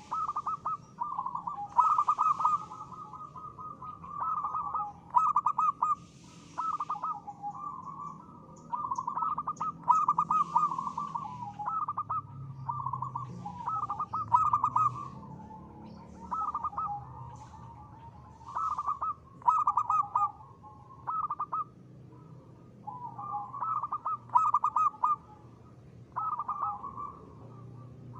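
Zebra dove (perkutut) cooing, short phrases of rapid staccato coo notes repeated every second or two.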